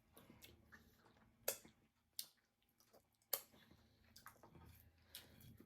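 Faint close-up eating sounds of soft starch and soup eaten by hand: chewing and wet mouth smacks, with three sharp smacking clicks in the first half.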